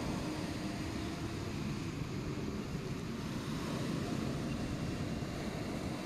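Storm surf breaking and washing up a pebble beach, a steady roar of sea, with wind buffeting the microphone.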